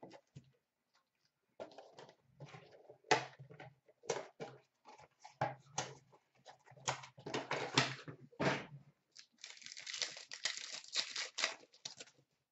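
Hobby box of trading-card packs being opened by hand: a string of cardboard scrapes, rustles and crinkles of pack wrappers, then a longer stretch of crinkling and tearing from about nine and a half seconds as a card pack is torn open.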